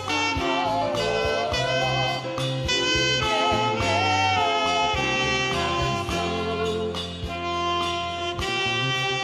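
Saxophone playing a slow worship melody with wide vibrato over a backing of sustained chords, bass and light percussion.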